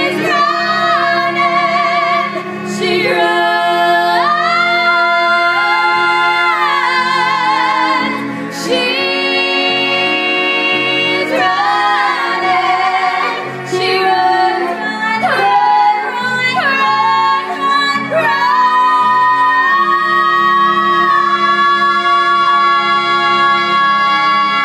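A woman singing long, held notes with vibrato and slides between pitches, over a steady low musical accompaniment.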